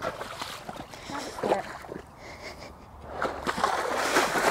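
A pony wading in shallow pond water, its hooves splashing and sloshing with each step; the splashing grows louder about three seconds in.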